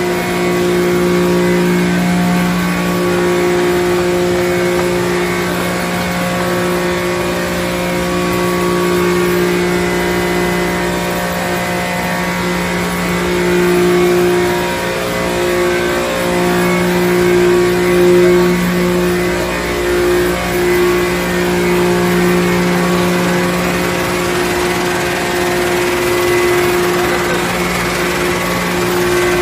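Machinery of a running plantain-chip frying line: electric motors and conveyors humming steadily with a constant low drone and its higher overtones, swelling slightly now and then.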